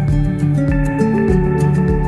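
Background music: a calm new-age style track of held notes over a steady beat.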